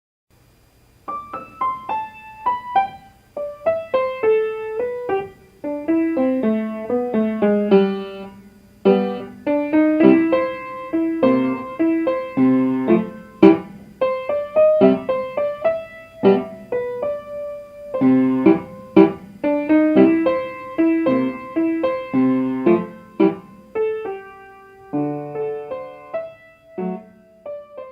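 Solo piano music: a quick melody of struck notes over chords, starting about a second in.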